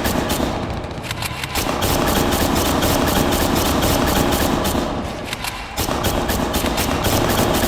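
Sustained automatic gunfire: rapid shots at about ten a second, easing briefly twice, over a steady low rumble.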